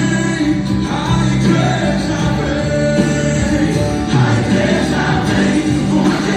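Brazilian gospel song playing, with a choir and lead voice singing over a full band.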